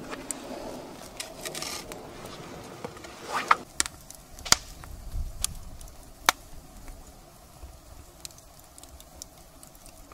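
Small wood fire of kindling crackling inside a clay pizza oven, with rustling and scraping in the first few seconds, then several sharp pops between about three and six seconds in, settling to fainter ticks.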